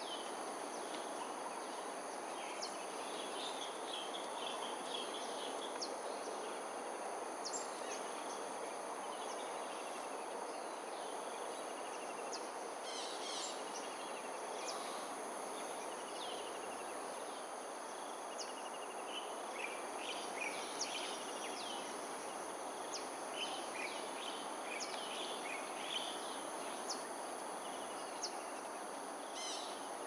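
Outdoor ambience: many short, high bird chirps and calls, coming more thickly in the second half, over a steady high insect buzz and a constant rush of background noise.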